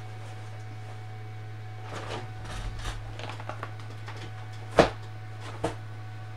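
Objects being handled and put down close by: a second or so of rustling, then one sharp knock about three-quarters of the way through and a lighter knock just after.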